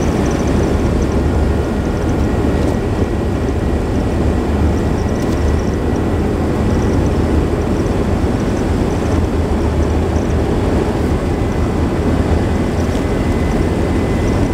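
Steady engine drone and tyre noise heard inside the cab of a 22-foot motorhome cruising on an interstate highway.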